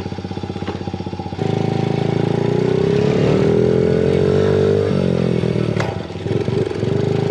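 Mini motorcycle engine idling with a steady pulse, then, after an abrupt jump in level about a second and a half in, revving up to a higher pitch and easing back down to a steady run.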